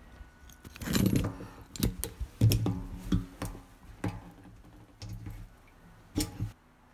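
Rusty steel chain being handled and threaded around giant tires: a run of irregular metallic clinks and clanks of the links, some heavier with a short low ring, stopping suddenly near the end.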